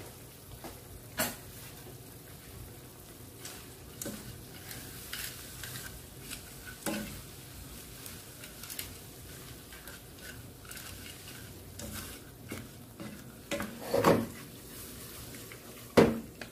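Wooden spatula stirring and tossing dry pansit canton noodles in a pot of simmering broth, with scattered clicks and scrapes against the pot and a few louder knocks, the loudest near the end. A low sizzle of the simmering liquid runs underneath.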